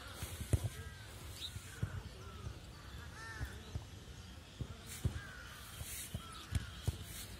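Crows cawing again and again, several short calls overlapping, with scattered low thumps of footsteps on grass.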